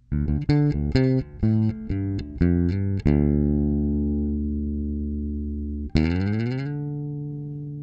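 Short guitar intro jingle: a quick run of notes for about three seconds, then a chord left ringing. About six seconds in, a second chord slides up in pitch and rings out.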